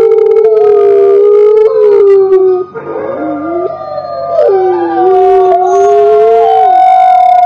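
Grey wolves howling in chorus: several long, held howls at different pitches overlap. They dip and waver about three seconds in, then swell back into steady held howls.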